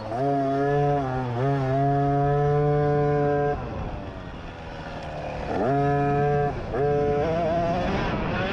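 50cc dirt bike engine at high revs under hard throttle, with short dips in pitch, then backing off for about two seconds before revving up steeply again and holding high.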